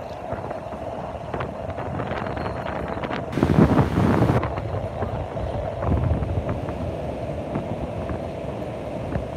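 Sea surf breaking along the shore, with wind buffeting the microphone. The wind is hardest in a gust about three and a half seconds in, and again briefly around six seconds.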